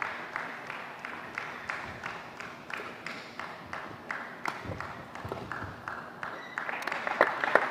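Spectators clapping in a steady rhythm, about three claps a second, during a badminton rally, with a few sharper racket-on-shuttlecock strikes in the second half. It cuts off suddenly at the end.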